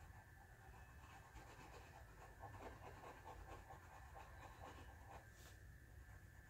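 Faint scratching of a pencil colouring on paper: quick back-and-forth strokes, over a low steady hum.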